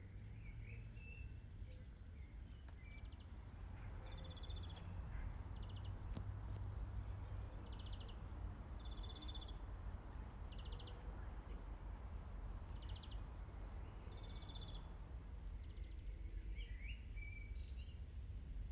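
Outdoor farm ambience: a bird repeats short, high, buzzy trills about every second and a half, with a few other chirps near the start and end, over a steady low rumble.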